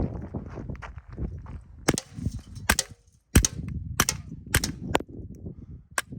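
Suppressed Sig Sauer P322 .22LR pistol firing subsonic rounds through a Little Spoon silencer: about seven quiet, sharp shots at an uneven pace of one or two a second, starting about two seconds in.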